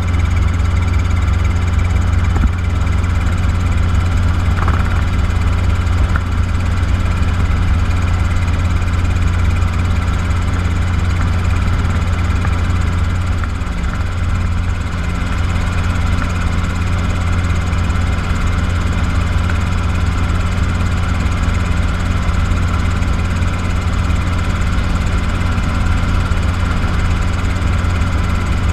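Robinson R22 helicopter running steadily: the even drone of its four-cylinder Lycoming piston engine and rotors, strongest in a deep low hum.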